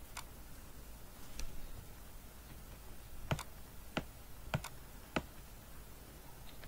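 Computer mouse and keyboard clicks: about seven short, sharp clicks at irregular intervals, two of them in quick succession about four and a half seconds in, over faint room hiss.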